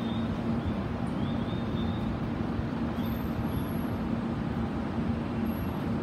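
Steady station-platform ambience: a constant hum and rumble with faint short high chirps now and then in the first few seconds.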